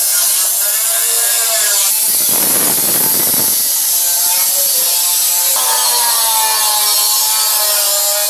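Sheet-metal cable tray being cut: a continuous scraping cutting noise with a whine whose pitch wavers and shifts every couple of seconds.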